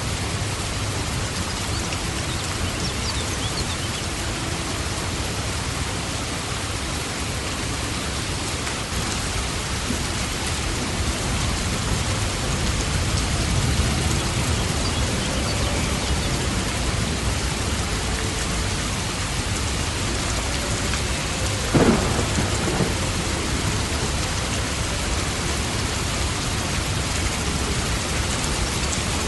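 Steady heavy rain with a low thunder rumble running under it, and one sharp crack about three-quarters of the way through.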